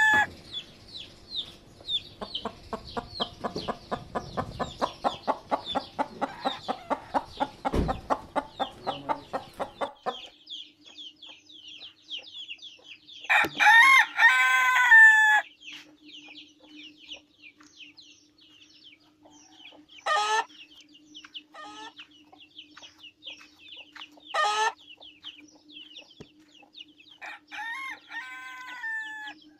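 Chickens calling: rapid, regular clucking for about the first ten seconds, then a rooster crowing loudly once about 13 seconds in and again more quietly near the end. Short single calls and faint high chirps fall in between.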